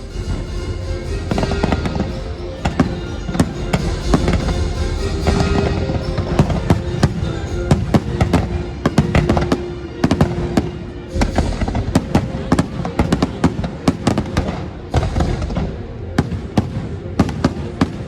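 Fireworks bursting in quick succession, many sharp bangs and crackles one after another, over the show's music with long held notes.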